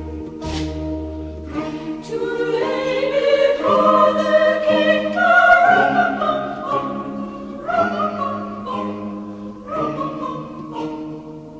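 Choral music with orchestra: a choir holding long notes, swelling to its loudest about five or six seconds in, with no clearly sung words.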